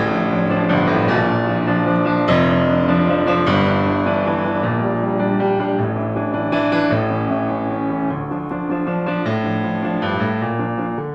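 Background piano music, slow chords struck one after another.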